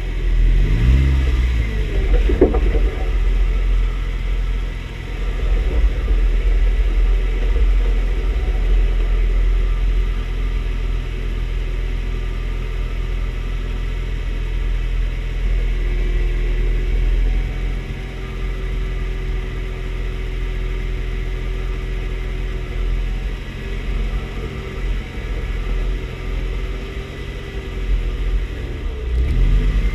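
Jeep engine running at low speed off-road, with its pitch rising briefly about a second in and again near the end.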